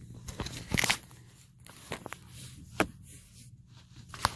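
Rustling and crinkling of handled merchandise, broken by several sharp clicks.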